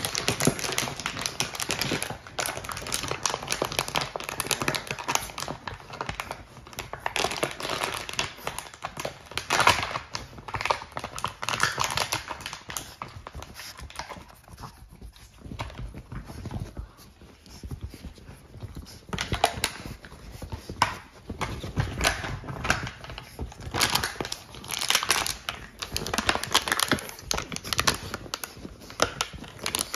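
French bulldog puppies chewing and batting an empty plastic water bottle, the plastic crinkling and clattering in quick, irregular clicks. It eases off for a few seconds about halfway through, then picks up again.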